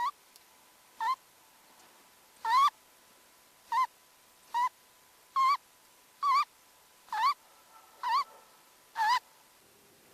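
A cat's snoring played back sped up, each snore squeezed into a short, high, squeaky toot that rises and falls in pitch, about ten of them at roughly one a second.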